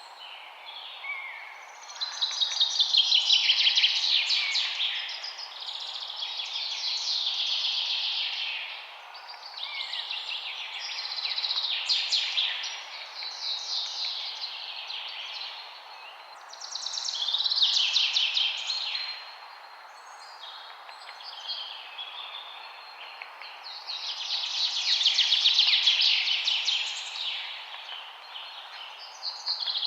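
Songbirds singing: phrases of fast, trilling notes, each a few seconds long, follow one another with short gaps and a longer pause about two-thirds of the way through. A steady hiss runs underneath.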